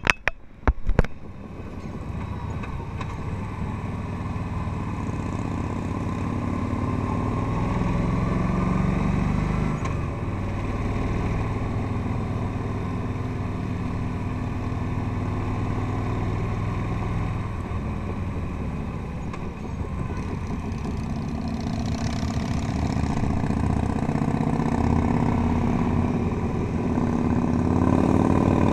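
Touring motorcycle's engine running at riding speed on a winding road, rising as the throttle opens about a third of the way in and again near the end, then easing off between. The sound briefly cuts out with a couple of sharp knocks in the first second.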